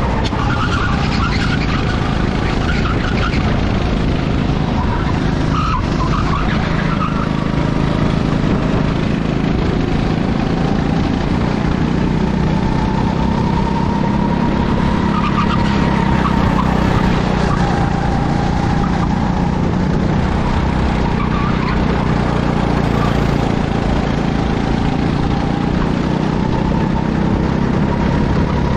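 Racing go-kart engines running at speed, loud and without letup, their pitch rising and falling.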